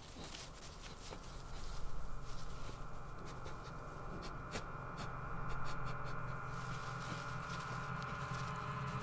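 Dry grass nest rustling and crackling as an Arctic ground squirrel stirs and shifts in it after hibernation, in quick scratchy clicks, loudest about two seconds in. A low hum and a higher held tone build slowly underneath.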